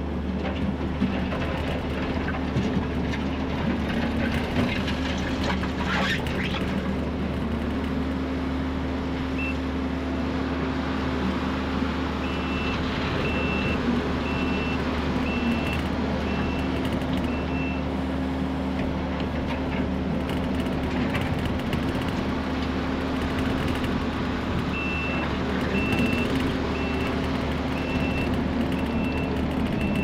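Kubota SVL65-2 compact track loader's diesel engine running steadily. Its reversing alarm sounds in regular high pips, a little under two a second, from about twelve to eighteen seconds in and again from about twenty-five seconds in.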